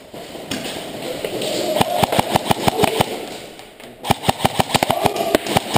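Airsoft M4 replica firing rapid strings of shots, about eight to ten sharp cracks a second. It fires in two spells, one from about two seconds in and another starting abruptly at about four seconds.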